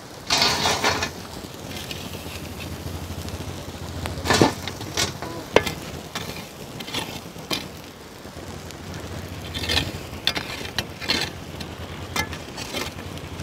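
Hot charcoal being scooped from the fire and dropped onto the metal lid of a large biryani pot, a step in dum cooking: a burst of scraping and clattering about half a second in, then scattered clinks and knocks of coals and the scoop on the lid.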